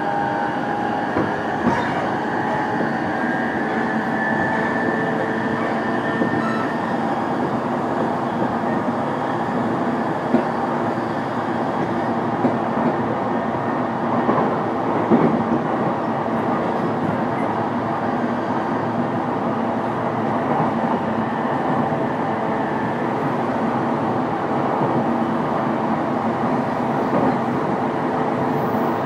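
Running noise heard inside the motor car of a JR East E233-series electric train (MoHa E233-1023) at speed: a steady rumble of wheels on rail with a few clacks over rail joints. A high whine from the VVVF-driven traction motors fades out about six seconds in.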